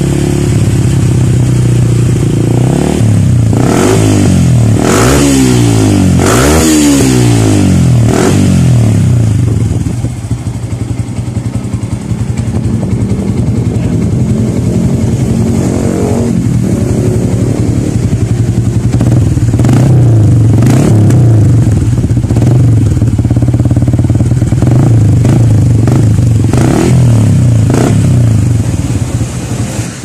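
Yamaha Sniper 150 FI's single-cylinder four-stroke engine running through a customized Edzpower aftermarket exhaust, heard close at the muffler tip. It is revved up and down several times, then settles to idle from about a third of the way in, with a few more short rev blips later.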